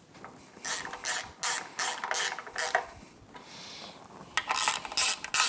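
A hand ratchet clicking in quick short strokes, about three a second, as the oil drain pass-through fitting on an outboard's upper casing is tightened. It stops for about a second and a half near the middle, then starts again.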